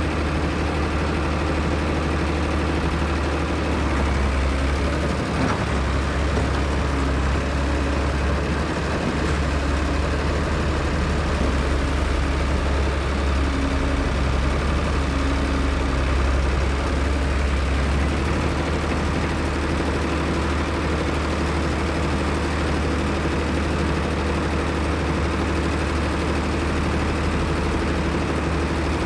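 Heavy excavator's diesel engine running steadily with a deep, low drone.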